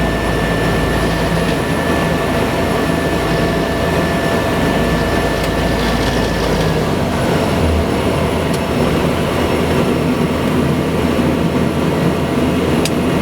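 Cessna 208B Grand Caravan's PT6A turboprop engine and propeller running steadily. About halfway through, the deepest rumble and a high steady whine drop away, as the engine's power changes. A few sharp clicks come near the end.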